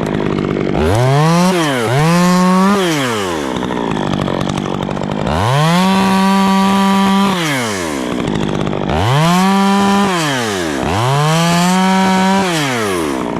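Stihl two-stroke chainsaw revved from idle to full throttle five times, each time held briefly and then dropped back to idle: short cuts taking off limbs from a fir trunk.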